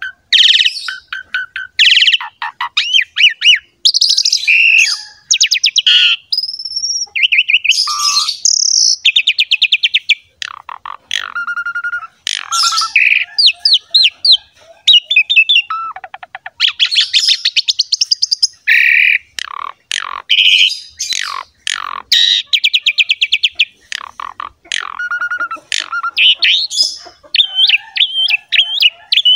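Asian pied starling (jalak suren) singing in full song: a loud, varied run of rapid rattling trills, whistles and chattering phrases, broken by short pauses.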